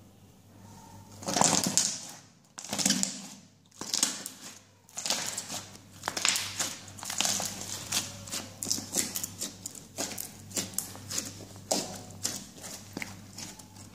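Green glittery slime being pressed and squeezed by hand: sticky squishing and crackling pops, a few big squishes at first, then quicker, shorter crackles and clicks.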